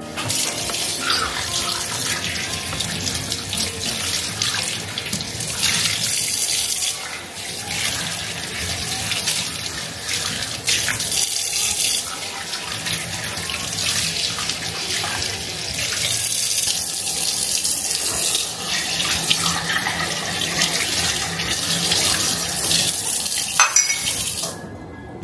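Kitchen tap running full into a sink as small glass cups are rinsed under the stream. Near the end a couple of light glass knocks come as the cups are set down, then the water stops.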